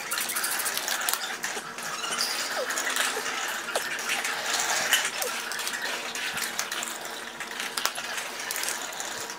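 Hand ratchet clicking as small bolts are backed out of an engine cooling-fan motor's bracket. Light metallic clinks and knocks come from the loose bolts and the metal bracket being handled.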